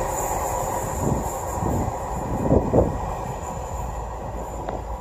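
Rumble of a freight train of open box wagons that has just passed, fading steadily as it moves away, with a couple of brief thumps about halfway through.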